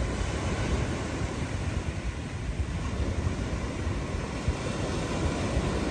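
Ocean surf washing onto a sandy beach, a steady rushing noise, with wind buffeting the microphone.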